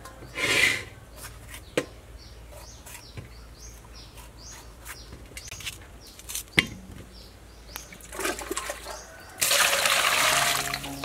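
Water splashing and sloshing as green bell peppers are washed by hand in a stainless steel bowl, with a few sharp knocks against the bowl and a longer rush of water near the end. A small bird chirps over and over behind it.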